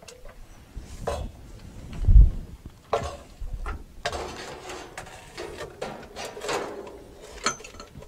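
Handling noise from PVC pipe, a metal hanging pipe and a steel chain being worked into place over a sump pit: scattered knocks and clinks with a heavy low thump about two seconds in, then rubbing and scraping.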